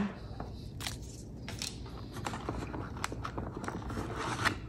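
Hands handling unboxed camera gear: scattered small clicks and rustles as a battery and a paper sleeve are set down and a hand grip is taken hold of in the molded plastic tray of a carry case. One of the sharper clicks comes near the end.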